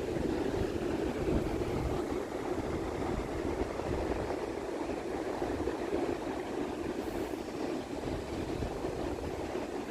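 Wind buffeting the microphone outdoors, a steady low rush that wavers in strength with no distinct sounds standing out.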